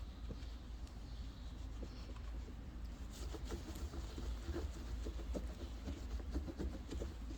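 Light scratching, rubbing and tapping from hands at work, over a low steady rumble; the small clicks grow busier from about three seconds in.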